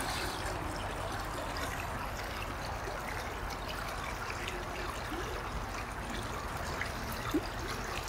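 Shallow river flowing steadily: an even wash of running water.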